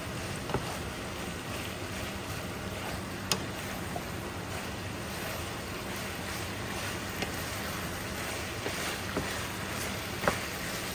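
Beef and broccoli stir-frying in a nonstick pan: a steady sizzle, with a wooden spatula stirring and knocking against the pan a few times, sharpest about three seconds in and near the end.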